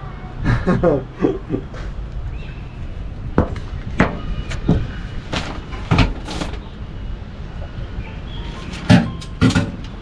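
Knocks and clunks of household handling: a sliding screen door, then a front-loading washing machine's door being opened and laundry pulled out. The sharpest clunks come near the end.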